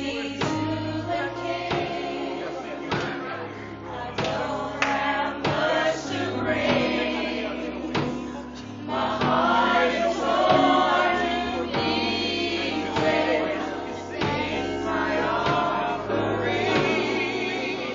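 Gospel mass choir singing together into a microphone, voices in harmony over steady low bass notes that change in steps.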